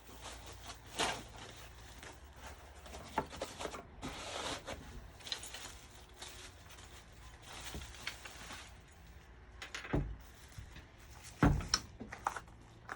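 Handling noise: scattered clicks, rustling and knocks, with two louder thumps, one about ten seconds in and one near the end.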